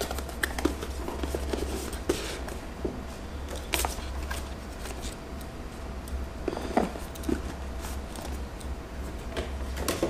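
Hands handling small plastic charger parts and a cardboard box: scattered light clicks, knocks and rustles, over a steady low hum.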